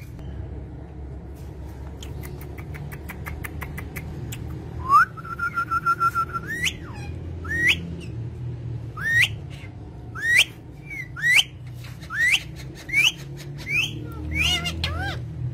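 Pet parrot whistling. A rising whistle is held as a steady note for about a second, then comes a string of short, sharp upward-sweeping chirps about once a second. Soft rapid clicks come in the first few seconds.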